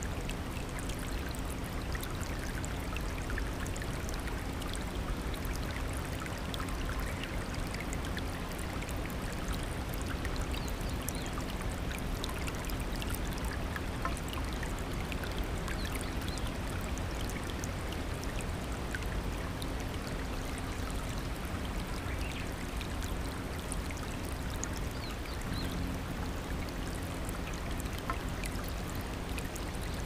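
Shallow rocky mountain stream flowing and splashing over stones in a steady, unbroken babble of water.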